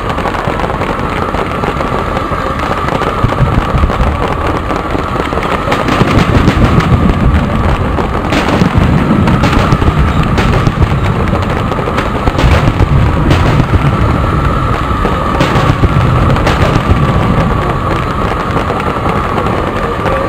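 Fireworks display: a continuous crackling and popping of bursting shells and fountains over a low rolling rumble, growing denser about six seconds in, with a run of sharper single bangs from about eight to seventeen seconds in.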